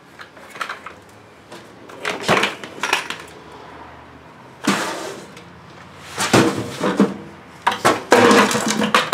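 Hard objects being handled and set down, clattering and clinking in about half a dozen separate bursts, the busiest near the end.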